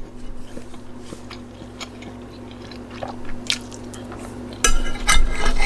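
Eating sounds: soft chewing and small clicks of cutlery, then, about four and a half seconds in, louder scraping of cutlery against the plate as the food is scooped up.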